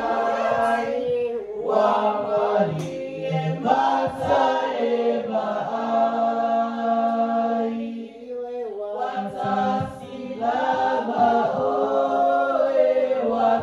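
A group of voices singing a song together, with a long held note in the middle and a short break before the singing picks up again.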